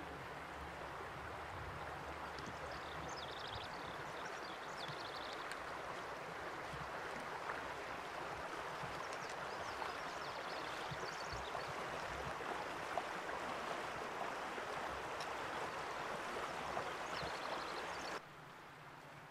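Shallow Gila River water running steadily over stones, with occasional small splashes as a hiker wades through it with trekking poles. The water sound drops off suddenly near the end.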